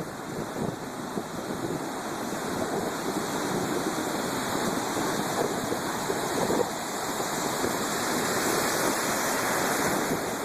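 Storm surf: waves breaking and washing in as a continuous rush of water, growing louder through the middle and later seconds.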